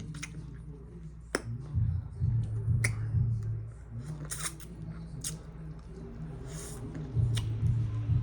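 Close-up mouth sounds of eating shrimp and seafood: wet lip smacking and chewing, with sharp smacking clicks every second or so.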